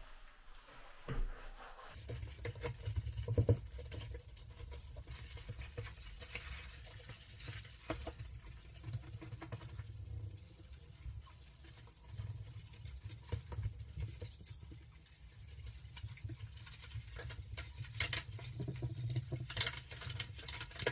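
A bathroom sink being scrubbed by hand with a sponge: irregular rough rubbing and scratching with scattered light clicks and knocks. A low steady rumble runs underneath from about two seconds in.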